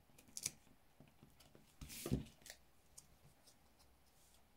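Faint clicks and rustles of metal tweezers peeling mini foam adhesive dots off their backing sheet and handling thin card, with a slightly louder scrape about two seconds in.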